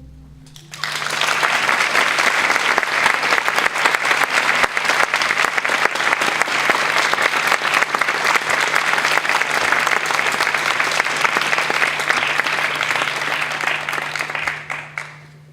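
Audience applauding, a dense clatter of many hands clapping that starts about a second in and dies away near the end.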